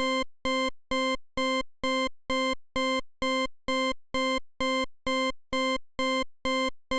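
Alarm-clock beeping opening an electronic music track: one steady low beep repeated evenly about twice a second, each beep short and cut off sharply.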